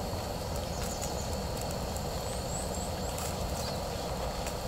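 Steady outdoor ambient rumble at a campsite, with a few faint, short, high bird chirps a little past the middle.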